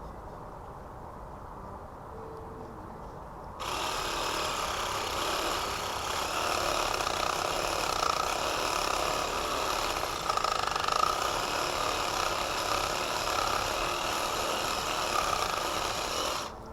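A loud, steady machine noise switches on suddenly about three and a half seconds in, runs evenly, and cuts off suddenly near the end.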